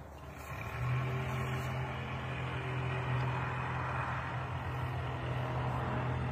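Steady low engine hum with a rushing noise underneath, starting about a second in and holding at an even level, like a motor vehicle or other engine running.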